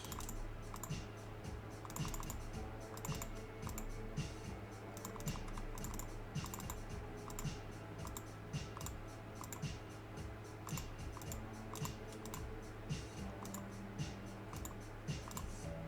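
Typing on a computer keyboard: a run of quick, irregular key clicks, over faint background music and a steady low hum.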